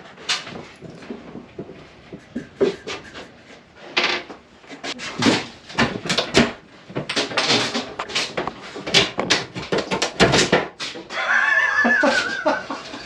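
Wooden ceiling panel being pulled down by hand from a boat's cabin roof: a run of cracks, snaps and knocks as it comes away from its fixings, then a long squeak near the end.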